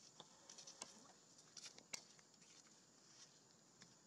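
Near silence: a faint, steady high hiss with a few soft, scattered clicks.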